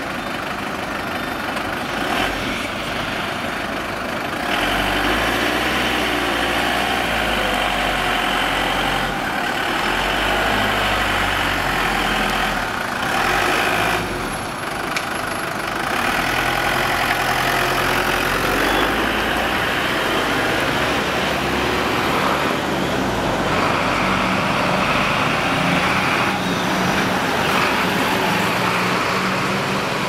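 Fire brigade vans and a fire engine driving past one after another, their engines running and swelling louder as each vehicle goes by.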